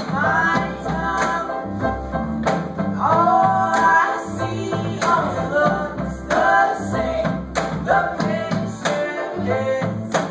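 Live acoustic band playing a song with a voice singing over it, carried by acoustic guitar and upright bass.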